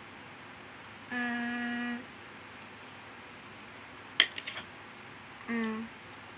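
A child humming a steady "mmm" for about a second while thinking of an answer, then a few sharp clicks as toys are handled, a shorter hum that falls slightly in pitch, and a loud click at the end.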